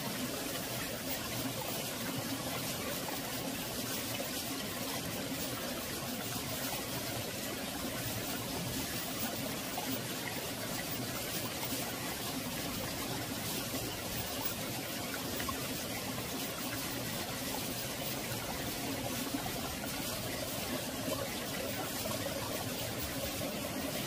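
Mountain valley stream flowing steadily, a calm, continuous rush of water.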